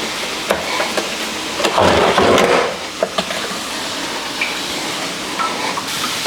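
Kitchen food-preparation sounds: a steady hiss under scattered clicks and knocks of utensils, with a louder rush of noise about two seconds in.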